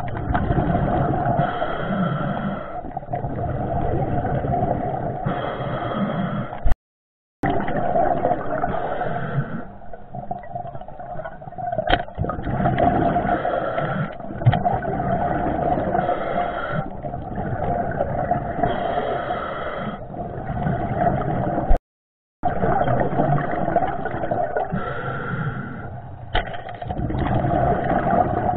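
Underwater noise through a diving camera's housing: a steady churning rush that swells and fades every few seconds, with an occasional small knock. It cuts out to silence twice, briefly.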